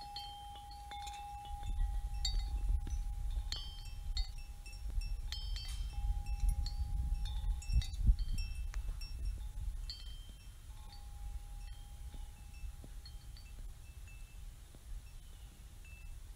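Wind chimes ringing irregularly, several metal tones struck at random and ringing on. One lower tone holds for seconds at a time, over an uneven low rumble.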